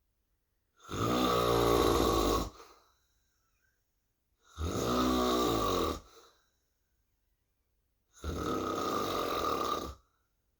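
Snoring: three long snores about three and a half seconds apart, with silence between them.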